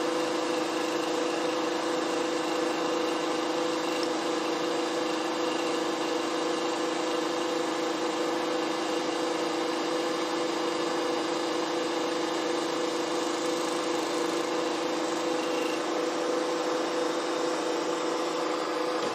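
Milling machine running steadily during a cutting pass, its end mill reshaping the damaged insert jaw of a lathe parting blade. The sound is an even mechanical whine with two held tones.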